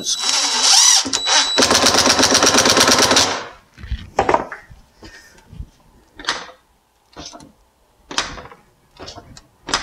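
Cordless drill/driver driving a screw through a dishwasher mounting bracket into the countertop: a rising motor whine for about a second, then a rapid rattle of clicks for under two seconds as the screw seats. Scattered light knocks follow, with a couple near the end as the dishwasher door is closed.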